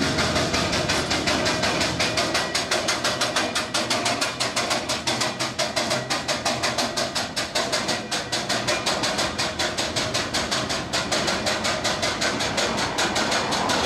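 Empty steel ballast box wagons of a long freight train rolling past, their wheels clattering on the track in a fast, even rhythm of about five knocks a second.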